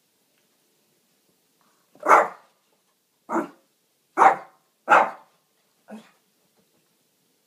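Shih Tzu barking five times in short single barks, the last one softer: demand barking for a drink of water.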